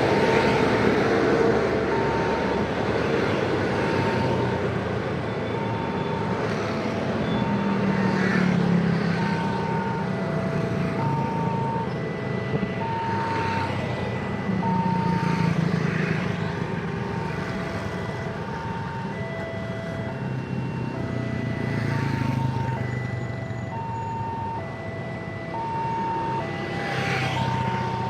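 Railway level-crossing warning signal sounding a repeating two-tone electronic alarm, a higher and a lower tone alternating about once a second. Underneath it is steady road traffic noise, with engines of vehicles waiting and passing at the crossing rising and falling.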